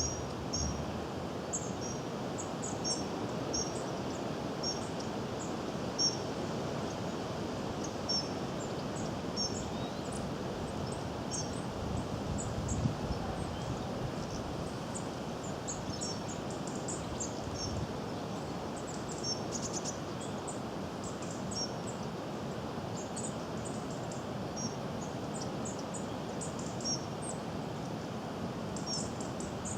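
Goldcrest calling: very high, thin short notes repeated in quick little series, over a steady background rush.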